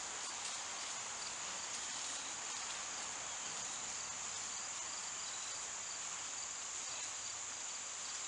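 Steady, unbroken high-pitched chorus of insects, like crickets, chirring throughout.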